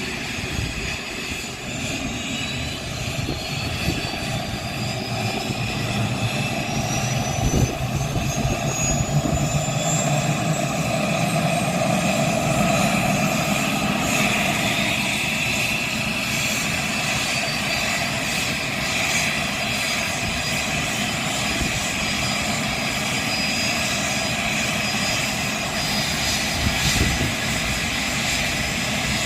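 Cessna Citation CJ1's Williams FJ44 turbofan engines starting and spooling up. A whine rises in pitch and grows louder over the first ten to fifteen seconds, then holds as a steady idle whine over a running rumble.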